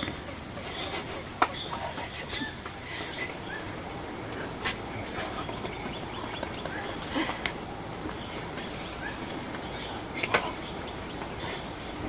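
Insects droning steadily in a high band, with a few sharp clicks and some faint short bird chirps scattered through; the loudest click comes about ten seconds in.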